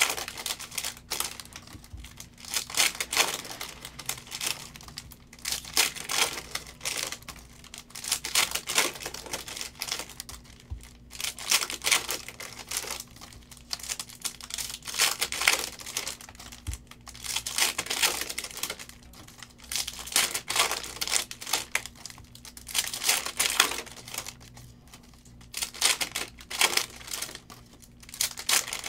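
Foil-wrapped 2022 Panini Optic football card packs being torn open and their wrappers crinkled by hand, in runs of tearing and crinkling every few seconds.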